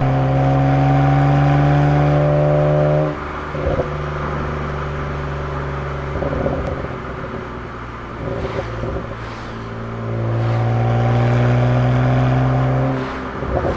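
BMW 135i's N54 twin-turbo straight-six pulling hard with a slowly rising tone, then cut off sharply on lift-off about three seconds in. Scattered exhaust pops and crackles follow on the overrun. A second pull starts around ten seconds in and ends the same way, with another pop near the end.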